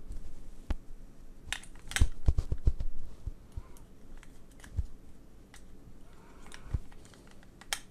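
Scattered small clicks and taps of SoundPEATS Free2 Classic wireless earbuds being fiddled with in their open charging case while they are checked and re-seated, with a quick cluster about two seconds in and a few single clicks after.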